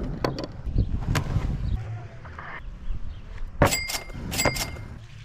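Steel fillet knife clinking against a table or tray: a few sharp metallic knocks, a softer one about a second in and two louder ones near the end that ring briefly, over a low rumble.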